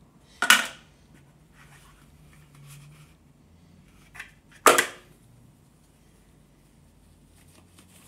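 Unboxing handling: a rigid cardboard box and its fabric pouch handled on a wooden tabletop, with two sharp knocks about four seconds apart, the second preceded by a lighter tap, and soft rustling in between.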